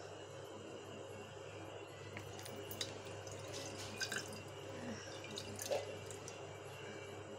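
Water trickling and dripping from the corner of a plastic fish bag into a glass jar as the bag is emptied, with a few sharper drips about three, four and six seconds in.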